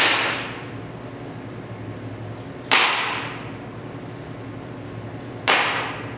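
Bentwood rocking chair rocking on loose wooden floorboards laid over concrete: a sharp wooden knock each time the rockers come down, three knocks about 2.7 seconds apart, each trailing off briefly. A steady low hum underneath.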